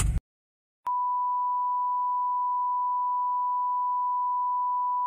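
A short burst of noise cuts off at the very start. About a second in, a steady, unbroken electronic sine-wave tone of a single pitch begins, like a test tone or dial tone.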